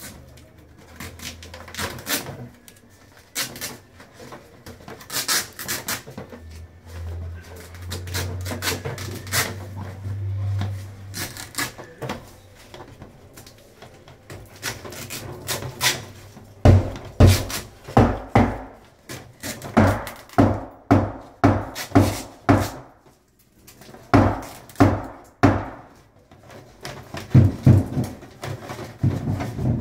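Flexible aluminium foil duct crinkling and rustling as it is worked over an exhaust fan's collar between ceiling joists. About halfway through, a run of strong knocks begins, roughly two a second, as the duct and fan housing are pushed and bumped against the framing.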